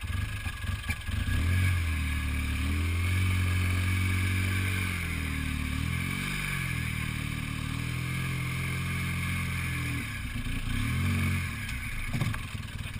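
Off-road buggy's engine pulling at low speed. It picks up about a second and a half in, eases off and gathers again around six seconds in, and drops back near the end.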